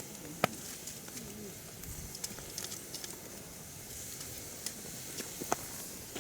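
Firewood burning in a mesh fire stand, crackling with many small, sharp pops over a steady hiss; the loudest pop comes about half a second in and another stands out near the end.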